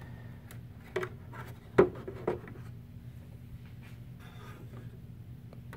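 Light handling of a plastic RC scale patrol boat: a few small clicks and knocks between about one and two and a half seconds in, then faint rubbing, over a steady low hum.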